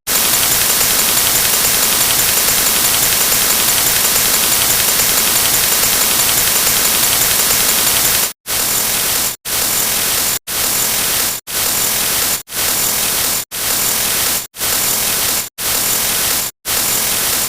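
Loud static hiss. It runs steady for about eight seconds, then is cut into roughly one-second bursts with short silent gaps between them.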